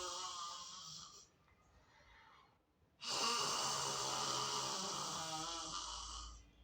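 A woman doing Simha Garjana, the yogic lion's roar: a forceful, throaty 'haaa' exhaled with the tongue out. One roar fades out about a second in, and after a quiet pause a second roar starts about three seconds in and runs for about three and a half seconds.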